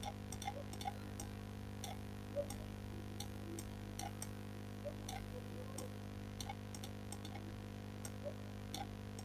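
Computer mouse clicking irregularly, a dozen or more sharp clicks, over a steady low electrical hum.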